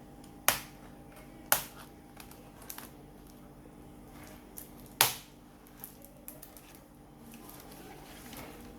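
Three sharp plastic clicks and a few lighter ticks as the laptop keyboard's retaining clips are pushed back with a small tool to release the keyboard, over a faint steady hum.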